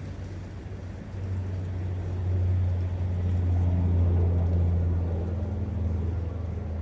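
Low engine drone with a steady hum, swelling from about a second in to its loudest around four seconds in, then holding. It sits over a faint hiss of flowing water.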